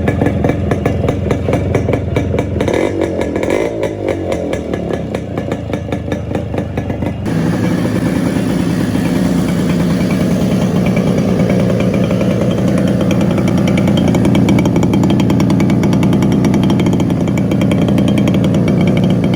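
Modified Yamaha RX100 single-cylinder two-stroke engine running with a pulsing exhaust note and blipped briefly. About seven seconds in the sound cuts abruptly to a louder, steadier two-stroke note held at higher revs.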